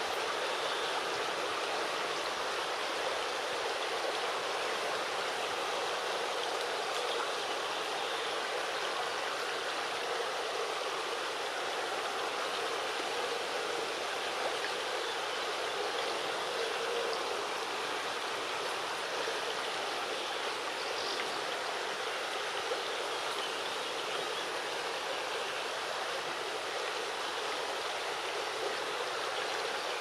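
Shallow river running over stones and rocks in riffles: a steady, even rush of water.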